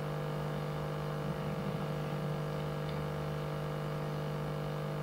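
Steady electrical mains hum, several even tones with a faint hiss of room noise beneath.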